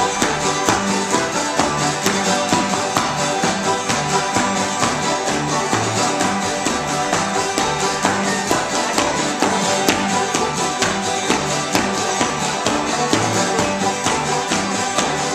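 Acoustic string band jam, with guitars strumming and a bass line walking between notes, playing a steady dance tune. Dancers' shoes tap on a wooden floor in time with the music.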